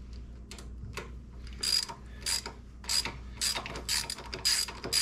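Socket ratchet with a 5/16-inch Allen bit socket running bolts into the Sportster, its pawl clicking in short bursts on each back-swing, about twice a second from under two seconds in, after a few faint clicks.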